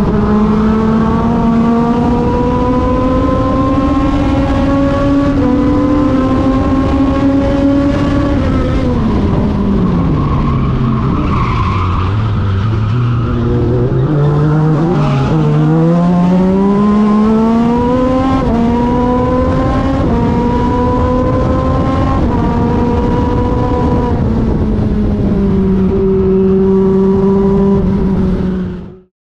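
Legends race car's Yamaha motorcycle engine at full throttle, heard from the cockpit, its pitch climbing and dropping back through upshifts. About a third of the way in the engine note falls steeply as the car slows for a corner and the tyres squeal. It then pulls back up through the gears and holds steady until the sound cuts off abruptly near the end.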